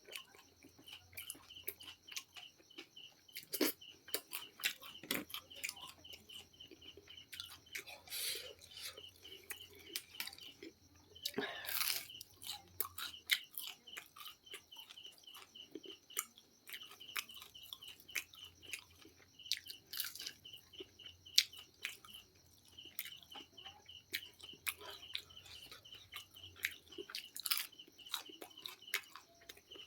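Close-up chewing and crunching of KFC fried chicken, with irregular crisp bites and mouth sounds. A rapid, high chirping repeats faintly behind it in stretches of several seconds.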